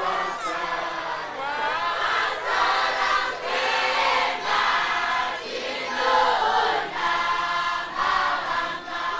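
Congregation singing a Shona chorus together, many voices at once in short repeated phrases: the men's turn in a call-and-response with the preacher.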